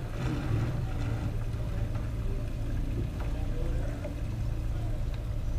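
A small boat's engine running at low, steady speed, heard from inside its pilothouse cabin as a steady low hum while the boat idles through a marina.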